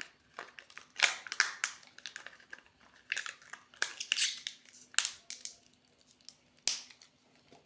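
Plastic candy packaging crinkling and being torn open by hand, in irregular crackly bursts.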